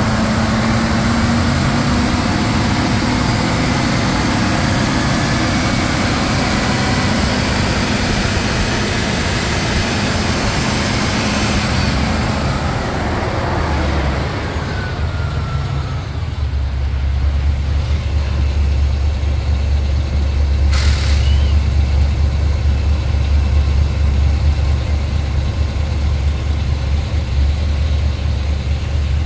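GM 6.0L V8 engine idling steadily. For the first half it comes with a strong rushing hiss; the hiss falls away about halfway in, leaving a steady low drone. A short hiss sounds about three-quarters of the way in.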